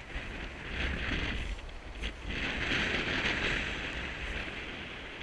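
Surf breaking and washing up a shingle beach, in two swells of hiss, the second longer and louder, with wind buffeting the microphone.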